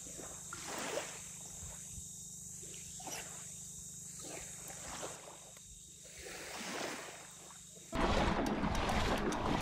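An animal calling in short, scattered calls over a steady high drone of cicadas. About 8 s in, a much louder rushing noise cuts in suddenly.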